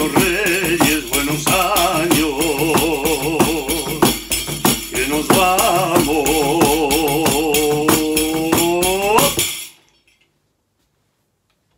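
Large pandera, a big frame drum with metal jingle rings, beaten in a quick steady rhythm while a man sings a traditional Castilian aguinaldo over it with a wavering voice. The song ends on a long held note that slides up, and drum and voice stop together about nine and a half seconds in.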